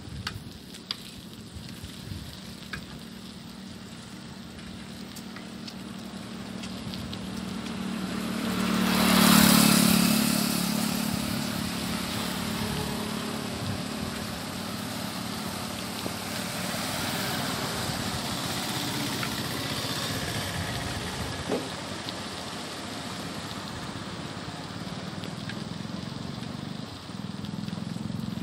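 Road traffic noise heard while moving along a road: a steady rush of wind and tyre noise, swelling to a loud pass-by, as of a vehicle going close by, about nine to ten seconds in, then slowly fading.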